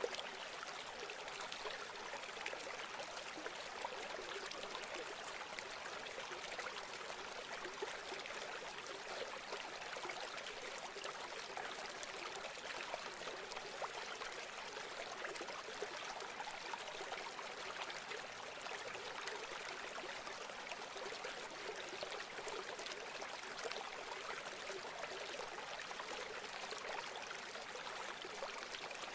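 A river stream flowing over rocks: a steady splashing and burbling rush, even throughout.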